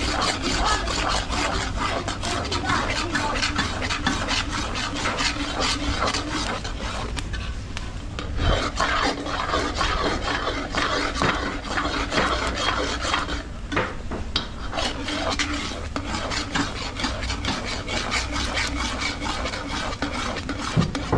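Spoon scraping around the bottom of a pot in quick, continuous strokes, stirring milk pera that has cooked down thick.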